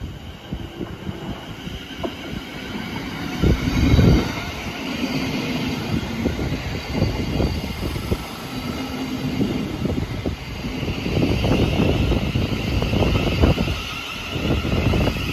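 A train running along the tracks through the station: a continuous rumble with repeated knocks from the wheels, loudest about four seconds in and again near the end.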